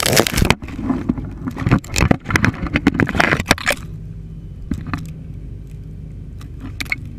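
Branches and leaves crackling and scraping against the camera as it is pushed through a tree's branches, dense over the first four seconds and then down to a few scattered clicks. Under it a machine's engine runs steadily.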